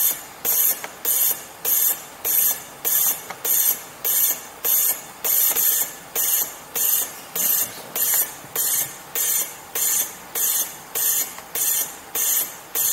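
Maestro high-frequency jet ventilator delivering rapid jets of oxygen, each a short sharp hiss, about three every two seconds in an even rhythm.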